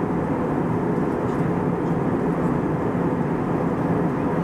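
Steady cabin noise of an Airbus A320 airliner in flight: the even rush of airflow over the fuselage with the drone of its engines underneath.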